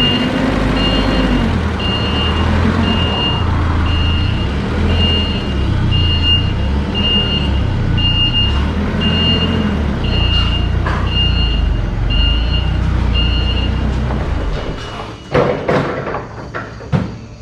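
A vehicle's reversing alarm beeping about once a second over a running engine; the beeping stops and the engine dies down near the end, followed by a few sharp clanks.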